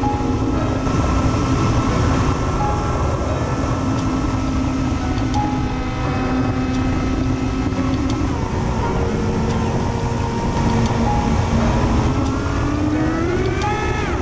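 Wind rushing over an onboard camera mounted on an FPV model aircraft in flight, mixed with the steady whine of its electric motor and propeller. Near the end the motor pitch rises sharply as the throttle is pushed up.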